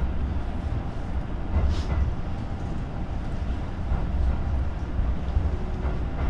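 Commuter electric train rolling slowly alongside a station platform as it arrives, heard from inside the car: a steady low rumble, with a short hiss about two seconds in.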